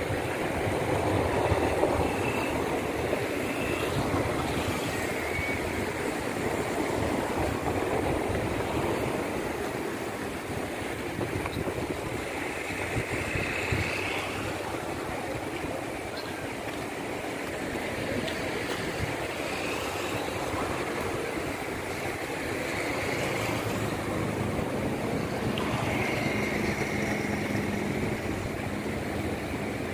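Steady rush of the flood-swollen Rio Paraíba's muddy water churning below a bridge. A low steady hum joins near the end.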